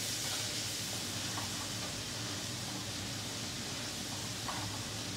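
Spice masala sizzling steadily in oil in a nonstick wok while a silicone spatula stirs it: the masala being fried down (bhuna) over the gas flame.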